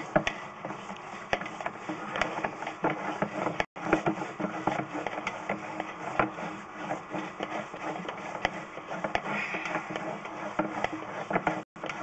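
Sewer inspection camera's push rod being fed off its reel while the camera head travels down a PVC sewer line: a steady run of irregular mechanical clicks and rattles over a faint low hum. The sound cuts out briefly twice.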